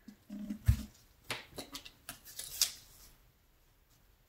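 Plastic Floetrol bottle handled on a plastic-covered work table: a dull knock just under a second in, then a run of light clicks and rustles.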